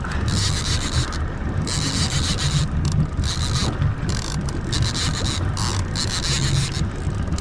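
Outboard motor running steadily as a small boat trolls, with a low rumble and hiss that comes and goes.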